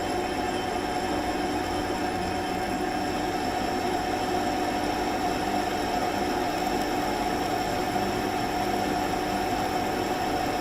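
Metal lathe running while a carbide parting-off tool cuts into an 8 mm stainless steel rod, with a steady high-pitched ringing squeal from the cut throughout. The ring is typical of a cutting tool set slightly above centre height.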